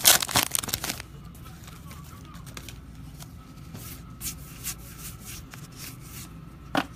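A trading-card pack wrapper is torn open and crinkled, loud for about the first second. Then the cards are slid and flipped through one by one, with soft scattered clicks and rustles and a sharper snap near the end.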